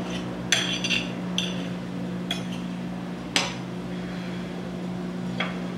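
Knife and fork clinking and scraping against a ceramic plate while cutting a baked empanada: about six sharp clinks, the loudest a little over three seconds in, over a steady low hum.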